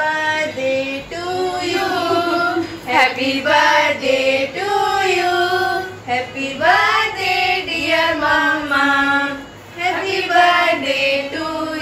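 Several women singing together, holding long notes that glide from one pitch to the next, with two brief breaks for breath.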